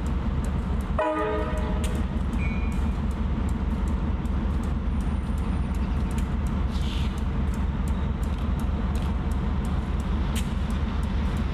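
Diesel locomotive engine idling with a steady low rumble; about a second in, a short horn toot sounds.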